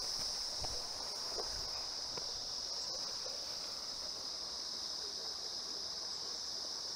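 A steady, high-pitched chorus of insects buzzing without a break, with a few faint footsteps on the path near the start.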